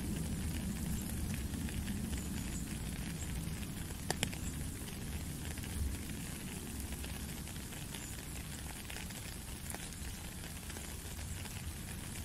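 Steady rain falling on a puddle and wet gravel: a dense, even hiss of pattering drops, with a couple of sharper drop ticks about four seconds in.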